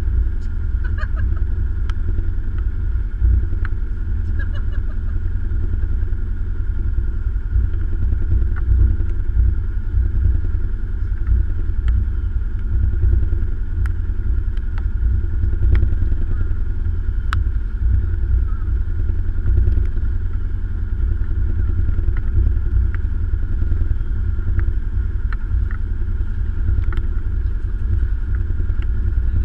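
Engine running steadily: a continuous low rumble with occasional light clicks and knocks.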